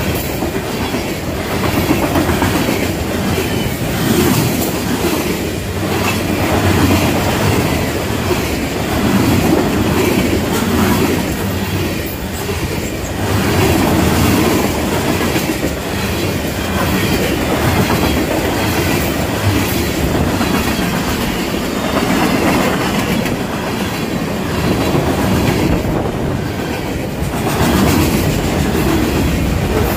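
Freight train cars rolling past at a grade crossing: a steady rumble of steel wheels on rail with clickety-clack over the joints, swelling and easing every couple of seconds as car after car goes by.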